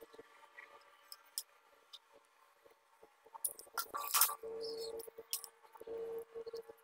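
Small plastic gears on steel shafts being handled and turned by hand: light clicks and rattles, with a louder clatter about four seconds in. A steady hum comes and goes behind it.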